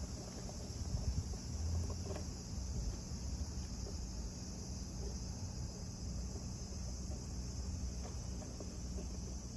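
Steady high-pitched chorus of insects, with a low rumble underneath that swells briefly about a second in.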